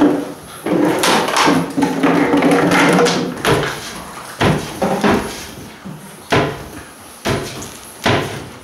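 Puppies playing: pitched growling and whining in the first few seconds, then a string of sharp knocks, about one a second, as they tumble against the wooden walls of their pen.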